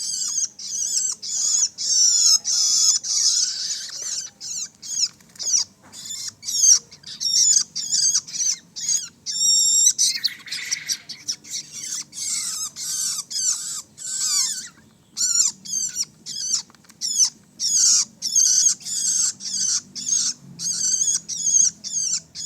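Young long-tailed shrike calling: high-pitched calls repeated rapidly in runs, with brief pauses between the runs.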